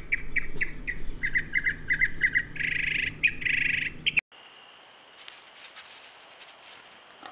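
A bird singing: a run of short high chirps about four a second, then faster buzzy trills, over low background noise. About four seconds in it cuts off abruptly to a faint, quiet hiss with a thin high tone.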